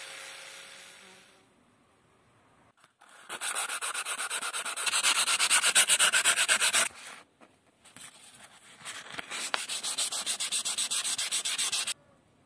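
An angle grinder's sanding hiss fades out over the first second and a half. Then a hand-held abrasive block is rubbed rapidly back and forth along a rusty steel bar, about seven strokes a second, in two runs with a short pause between, stopping suddenly near the end.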